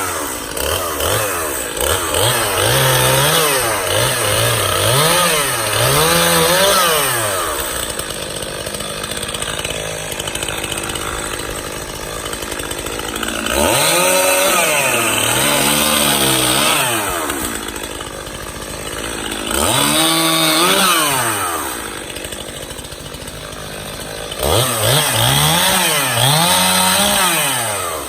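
Stihl chainsaw cutting up fallen oak limbs: the engine revs up and drops back again and again in quick bursts of throttle, with several steadier, lower-pitched stretches in between.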